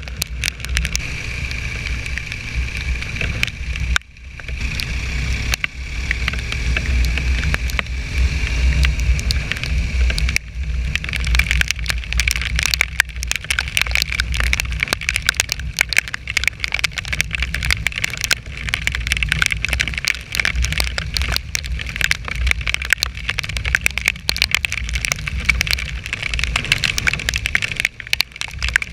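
BMW R1200GS boxer-twin motorcycle on the move, its engine running low under loud wind rush and buffeting on the microphone. The noise dips briefly about four seconds in.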